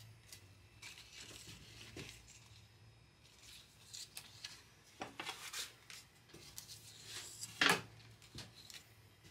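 A paper template rustling and crinkling as it is handled and laid flat on a cutting mat and a wood board, in short irregular bursts. The loudest rustle comes a little before the end.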